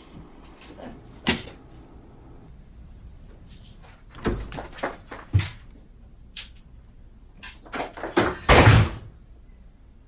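A door being handled: a sharp latch click about a second in, a run of knocks and clicks a few seconds later, and the loudest shut near the end.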